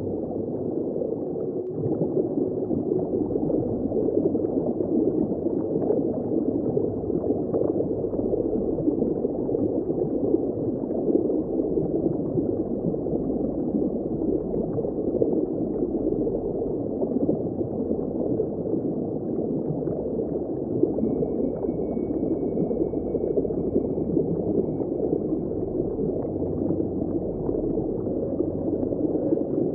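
Underwater ambience: a steady, muffled rush and gurgle of churning water, with no high end to it.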